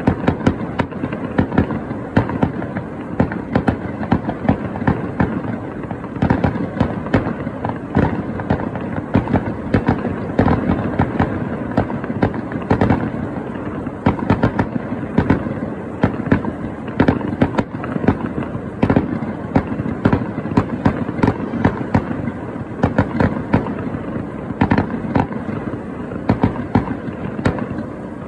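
Aerial fireworks shells bursting in a rapid, continuous barrage, many bangs a second with no let-up.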